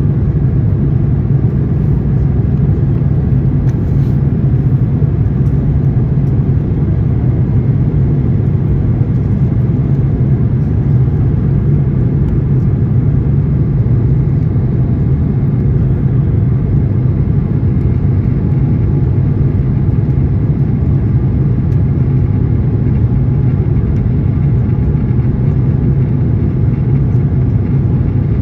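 Steady low rumble inside an Airbus A350-900 cabin: its Rolls-Royce Trent XWB jet engines and airflow, with no change in pitch or level.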